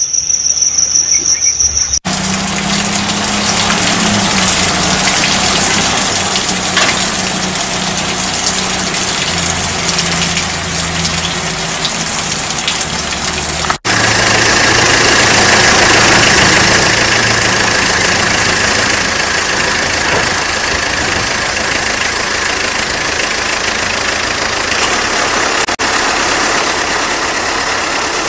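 A motor vehicle engine running steadily under a loud rushing hiss, broken by abrupt cuts about two seconds in, near the middle and near the end. The first two seconds carry a high, evenly pulsing chirr.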